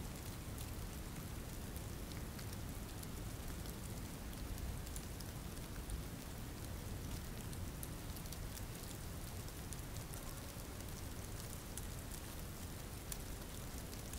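Steady rain falling, with a dense patter of individual drops over a low rumble.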